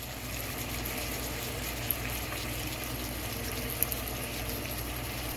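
Burger patties frying in fat in a nonstick pan on low heat, a steady low sizzle with a couple of small pops.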